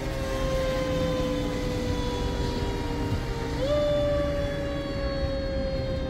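Fire engine siren sounding with one wail. Its pitch sinks slowly, jumps back up about three and a half seconds in, then sinks slowly again over a low rumble of traffic and weather noise.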